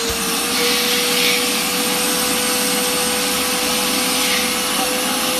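2000 W single-motor industrial vacuum cleaner running at full suction: a steady motor whine over rushing air, the air hiss swelling briefly about a second in.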